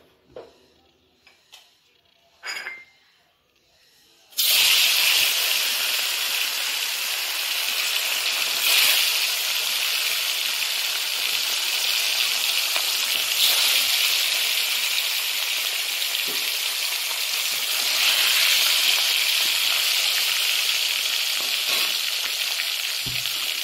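Pieces of katla fish sizzling in hot mustard oil in a wok: a few light clicks at first, then a loud, steady sizzle starts suddenly about four seconds in as the first piece goes into the oil, swelling again a few times as more pieces are added.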